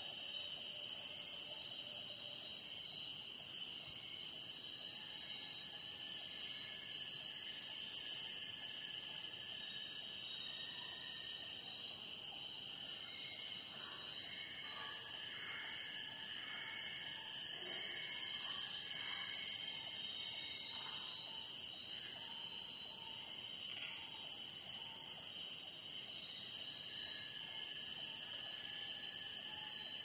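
Bornean rainforest morning chorus: insects keep up a steady, high drone at two pitches while birds call now and then, with a run of short repeated whistled notes in the middle.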